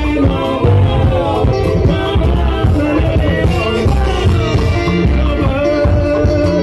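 Live band music played loud through PA speakers: a man singing into a microphone over a steady drum and bass beat.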